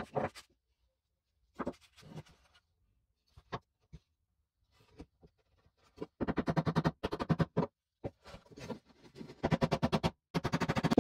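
Hammer tapping wooden dowels into stacked pine discs: a few scattered knocks, then from about six seconds in three runs of quick, rapid taps.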